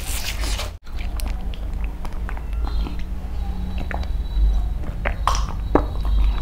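Close-miked mouth sounds of a man eating, chewing and then gulping water from a glass, with scattered short clicks over a steady low rumble. The sound drops out briefly just under a second in.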